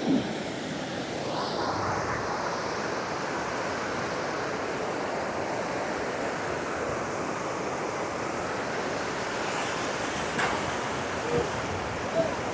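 Steady rushing of river water, an even hiss and roar with no break, with a couple of faint brief ticks near the end.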